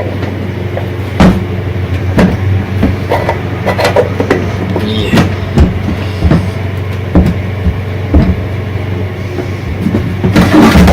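Irregular sharp clicks and knocks, about one a second, from the parts of an exhaust fan being handled and fitted back together, over a steady low hum.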